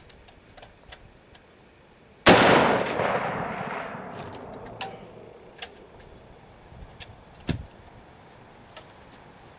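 A single shot from a .308 Rock River LAR-8 semi-automatic rifle with a muzzle brake about two seconds in, its report echoing and fading away over about three seconds. A few faint clicks and one short thump follow later.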